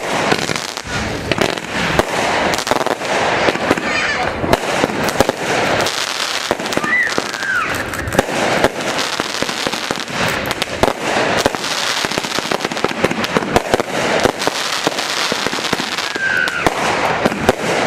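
Fireworks going off in a dense, unbroken barrage of rapid crackling pops and bangs.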